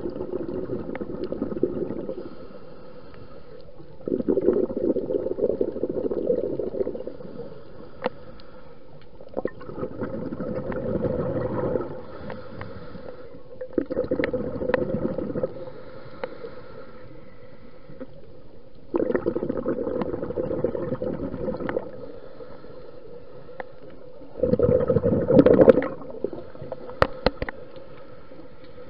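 Scuba diver's exhaled breath bubbling out of the regulator underwater, heard through the camera housing: a two-to-three-second burst of gurgling bubbles about every five seconds, six times, with quieter gaps while the diver inhales.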